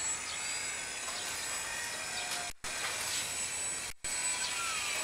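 Motor and propeller of a small Depron foam RC model plane in flight, a faint whine whose pitch shifts up and down as the plane manoeuvres, over a steady background hiss. The sound cuts out for an instant twice.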